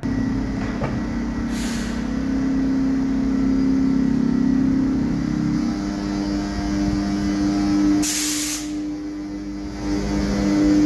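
Škoda class 162/362 electric locomotive humming steadily with several held tones from its traction motors. A short hiss of released air comes about a second and a half in, and a louder, longer one about eight seconds in.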